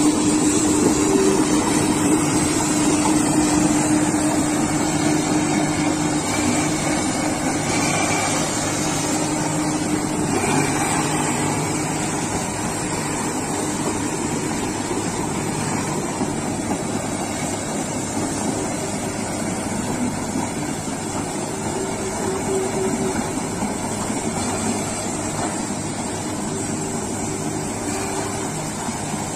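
Komatsu PC200 excavator's diesel engine running steadily as the machine tracks through shallow seawater, with waves washing around it; the sound slowly fades as the excavator moves away.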